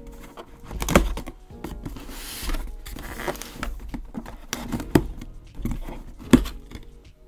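Scissors slitting the clear packing tape along the seam of a cardboard box while the cardboard is pressed and its flap lifted: short scraping rasps of the blade through the tape and a few sharp knocks on the cardboard, the loudest about a second in and near the end.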